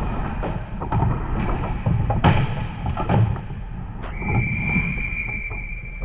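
Ice hockey game sounds in a rink: sticks and the puck clacking and boards knocking over a low arena rumble. About four seconds in, a sharp knock is followed by a steady high-pitched tone that holds on.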